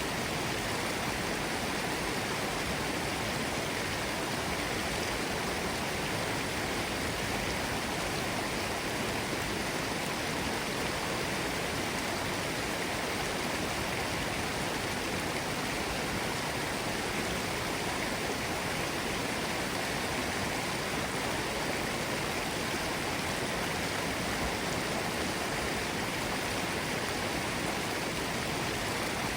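Mountain stream bubbling and rushing over rocks, a steady, even water noise.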